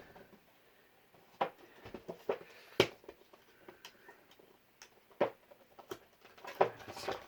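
Hands working at cardboard retail toy packaging to get it open: scattered sharp clicks, taps and scrapes, growing busier near the end.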